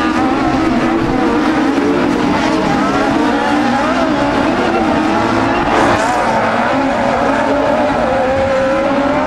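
Several Buggy 1600 class autocross buggies racing on a dirt track. Their engines rev up and down at once, in several overlapping pitches that rise and fall as they accelerate and shift.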